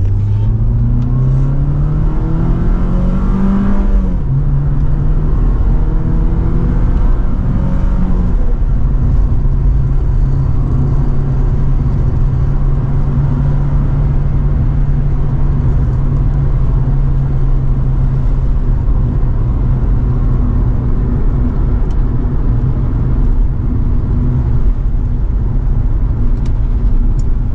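Porsche 944 S2's 3.0-litre four-cylinder engine heard from inside the cabin, accelerating hard up through the gears. The note climbs for about four seconds and drops at an upshift, then climbs again and drops at a second upshift about eight seconds in. After that it holds a steady cruise.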